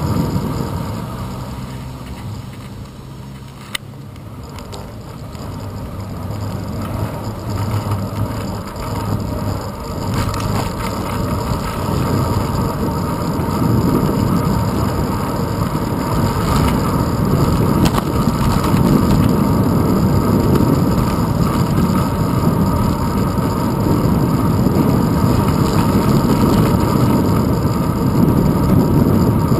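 Wind and road rumble on a handlebar-mounted action camera as a bicycle rides along a street, with car traffic. The rumble dips for a few seconds early on, where a single sharp click sounds, then builds as the bike picks up speed and stays loud.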